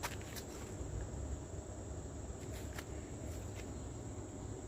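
Steady, high-pitched insect chorus from garden insects such as crickets, over a low rumble, with a few faint clicks.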